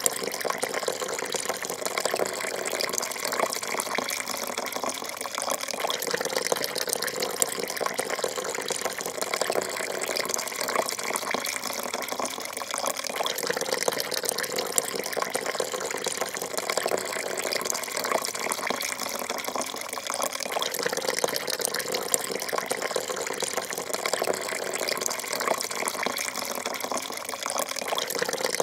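A thin stream of coffee pouring steadily into a porcelain cup, splashing into the coffee already in it: an even, unbroken trickling splash.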